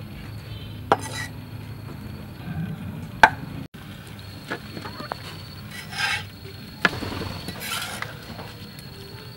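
A cleaver knocking on a wooden chopping board and scraping cut pieces of raw pork belly off it onto a metal baking tray: three sharp knocks with a few short scrapes between them.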